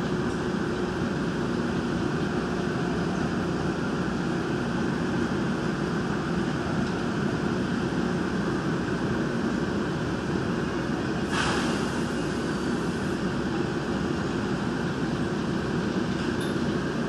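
Gwangju Metro Line 1 train running slowly as it pulls into the terminus, heard from inside the car: a steady rumble with a low hum. A brief hiss comes about eleven seconds in.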